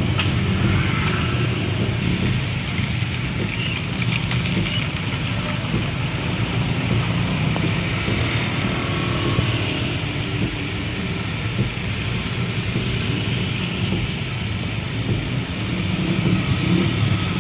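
Steady noise of a vehicle on the move in a heavy rainstorm with strong wind: a low engine and road rumble under an even hiss of rain and wind.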